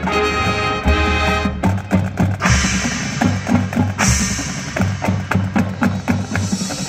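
Marching band playing: a held brass-and-wind chord for about the first second and a half, then a fast percussion passage of drum strokes from the drumline and front ensemble, with cymbals and a crash about four seconds in.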